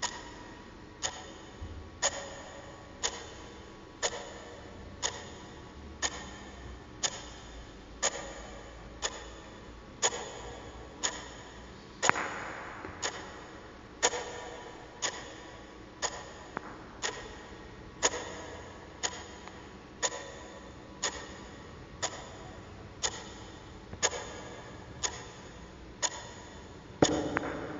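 Anniversary-style mantel clock under a glass dome ticking steadily about once a second, each tick a sharp click. A louder knock sounds about twelve seconds in and again near the end.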